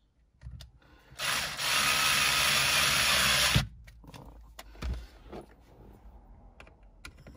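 Small cordless drill-driver running a screw into the new clock spring for about two and a half seconds, starting a second in and cutting off sharply with a click. A few light clicks and knocks of tool handling follow.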